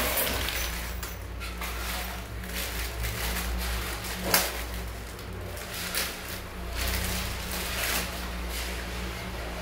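Scattered clicks and light knocks of plastic hand-shower fittings and hose being handled on a tiled floor, over a steady low hum; the sharpest knock comes about four seconds in.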